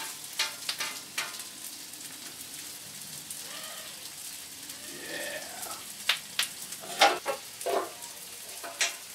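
Sliced onions sizzling in oil and butter on a hot flat-top griddle. Metal tongs click against the steel plate in the first second. Several louder metal clanks follow in the second half as a stainless steel basting cover is handled and set down on the griddle.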